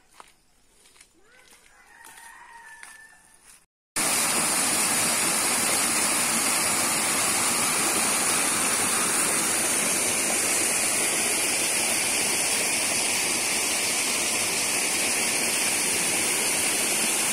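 Loud, steady rush of muddy water pouring over a small concrete weir and splashing down into a gully. It starts abruptly about four seconds in and cuts off suddenly at the end. Before it, faint bird calls along a quiet forest path.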